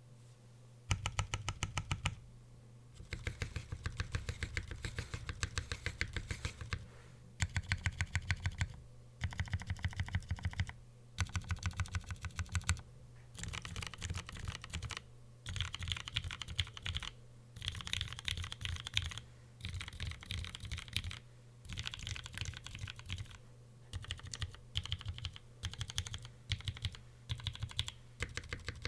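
Typing on a custom mechanical keyboard with lubed, filmed Cherry MX Brown tactile switches in a polycarbonate plate, o-ring gasket mount and GMK keycaps: rapid keystrokes in bursts of a second or two with short pauses between. A steady low hum runs underneath.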